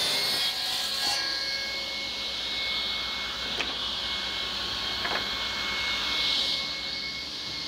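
Table saw ripping a beech board into strips, the cut ending about a second in; then the blade spins free with a steady high whine, and two light knocks of wood are heard as the cut strip is handled.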